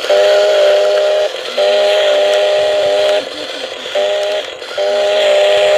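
A steady whistle-like tone, held at one pitch in four long blasts with short breaks; a fainter, lower tone sounds in the breaks.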